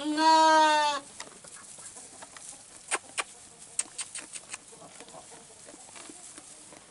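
A Cameroon sheep gives one loud, clear bleat about a second long, dropping slightly in pitch at the end. A few sharp clicks and rustles follow a couple of seconds later.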